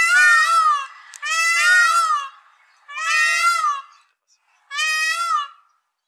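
Indian peafowl (peacock) calling: four loud, drawn-out cries of about a second each in quick succession, each wavering in pitch.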